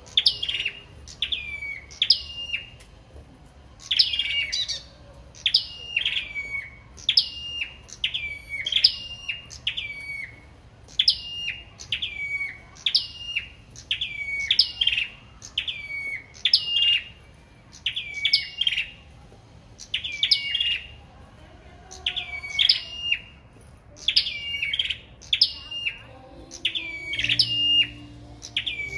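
Caged sâu đầu đỏ songbirds singing against each other: runs of sharp, high notes, each dropping in pitch, about two a second, with short pauses between runs.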